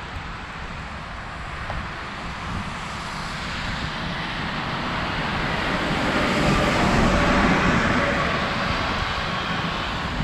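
Wind buffeting the microphone of a camera on a moving bicycle, over traffic noise from the road alongside. A passing vehicle's engine and tyre noise swells about halfway through and eases off near the end.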